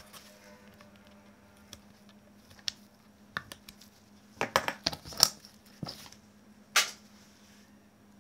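Small handling sounds of bicycle brake pads and their cardboard packaging: scattered sharp clicks and taps, a quick cluster of them about halfway through, and a brief crinkly scrape near the end.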